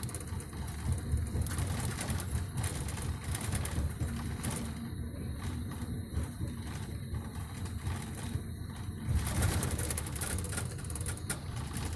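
Coach cabin noise on a rough road surface: steady low rumble of engine and tyres with frequent rattles and knocks from the bumps, growing louder about nine seconds in.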